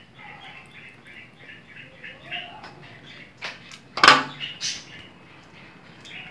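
Plastic bottles knocking on a glass tabletop: a sharp knock about four seconds in, with lighter taps just before and after it. Faint rapid high chirping runs through the first three seconds.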